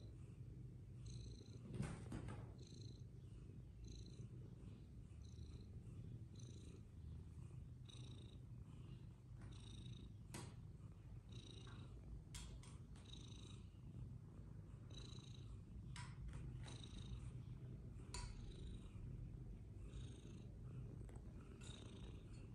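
Cat purring: a steady low rumble with a soft breathy pulse in a regular rhythm, broken by a few light knocks, the loudest about two seconds in.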